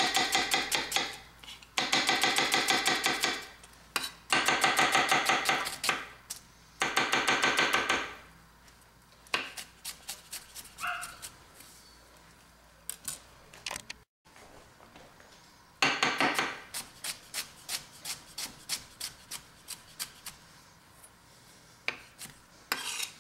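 Kasumi titanium chef's knife dicing an onion on a maple butcher-block board: several bursts of fast chopping strokes, the blade knocking on the wood. In the second half it goes on as slower, separate knocks.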